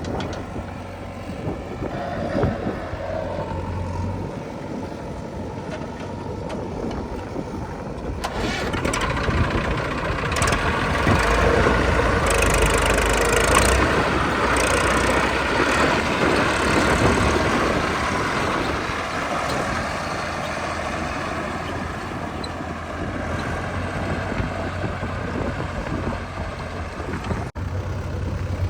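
Diesel engine of working heavy machinery running steadily, growing louder about a third of the way in and staying loud for around ten seconds before easing back.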